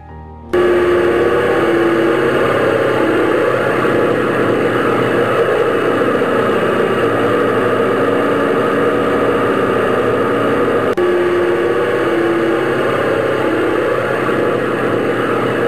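Propeller aircraft engine droning steadily, starting abruptly about half a second in, with a momentary break about eleven seconds in.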